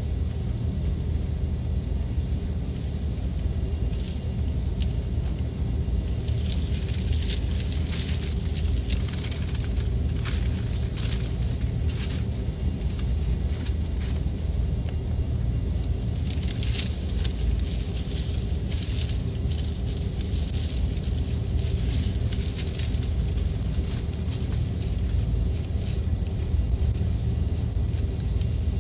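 Cabin noise inside an Airbus A330-300 taxiing: a steady low rumble. Irregular faint clicking and crackling run over it through the middle stretch.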